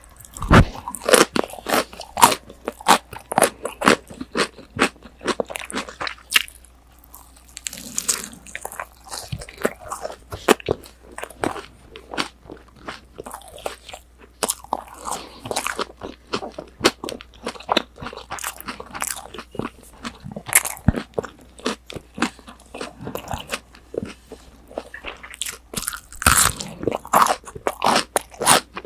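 Close-miked chewing of crisp breaded fried pork cutlet (tonkatsu): a dense run of sharp crunches from bites and chewing, recorded on a binaural microphone. It eases off briefly about 7 seconds in, and the loudest bite comes near the end.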